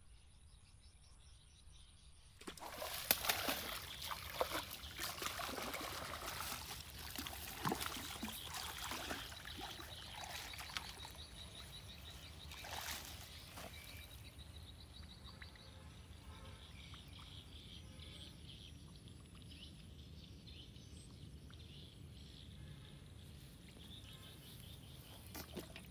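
A hooked catfish splashing and thrashing in the shallow water among water hyacinths as it is hauled in. It starts suddenly a few seconds in and is loudest for the next several seconds, then tapers into softer splashing and rustling.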